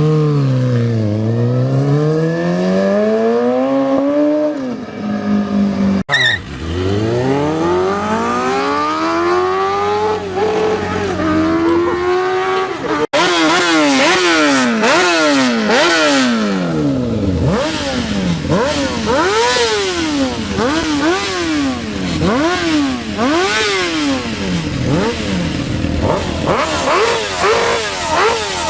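High-revving motorcycle engines, in three clips joined by abrupt cuts. In the first two, the engine note drops and then climbs steadily under throttle. In the last, the revs rise and fall in quick blips about once a second.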